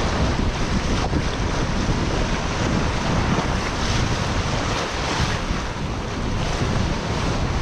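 Sea waves breaking and washing over shoreline rocks and around a wading person's legs, with wind noise on the microphone; a steady rushing noise throughout.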